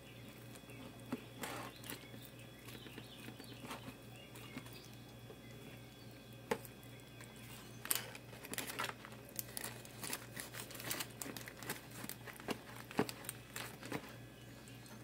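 Knife slicing meatloaf in a disposable aluminium foil pan lined with wax paper, then a metal spatula sliding under the slice and lifting it: scattered scrapes, taps and crinkles of foil and paper, busier in the second half, over a low steady hum.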